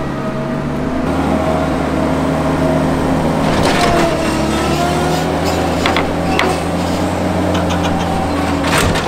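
Tennant 6500 ride-on sweeper's engine running steadily as it climbs onto trailer ramps, its pitch lifting slightly under load about three seconds in. Sharp metal knocks from the ramps under its wheels come around four seconds in, again past six seconds and near the end.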